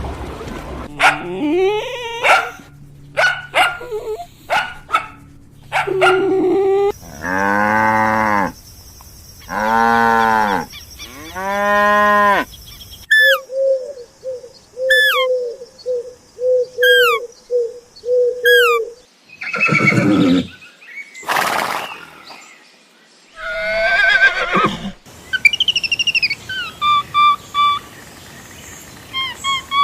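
A string of different animal calls, one kind after another: a few short calls, then three long drawn-out calls, then a run of short falling chirps, then louder harsher calls, and repeated chirping near the end.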